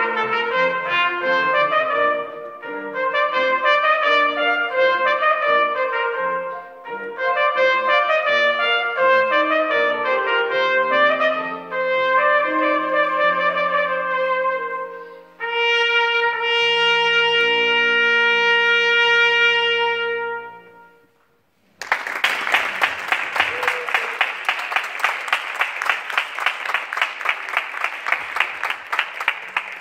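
Trumpet with piano accompaniment playing the closing phrases of a piece, ending on a long held final note. After about a second of quiet, an audience applauds.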